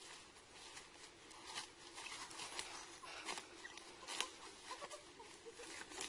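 A leafy tree branch rustling, with irregular crackles and snaps of twigs, as it is pulled down and worked by hand.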